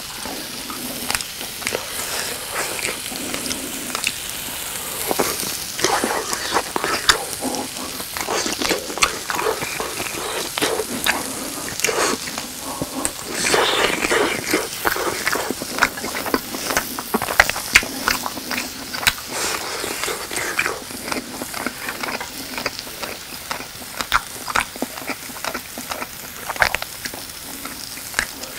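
Close-miked eating sounds: chewing and mouth noises on slices of grilled grilling cheese. Under them runs a steady crackle of cheese sizzling on an electric grill plate, broken by many small clicks.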